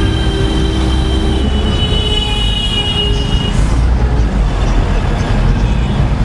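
Steady low rumble of a moving vehicle, with a faint thin high tone over the first half.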